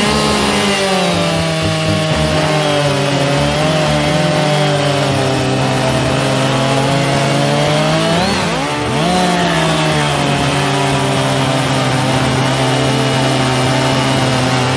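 Husqvarna 575XP chainsaw, a 73.5 cc two-stroke, cutting through a dry spruce round at full throttle, its pitch sagging under load. About eight seconds in it comes free and revs up briefly, then bogs back down and holds steady as it starts the second cut, up from underneath.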